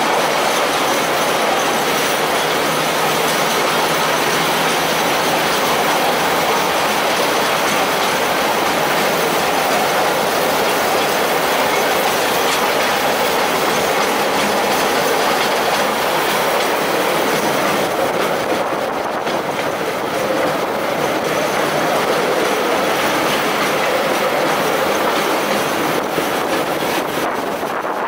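Motorized gang car running along narrow-gauge track, heard from on board: a steady loud rolling noise of its steel wheels on the rails.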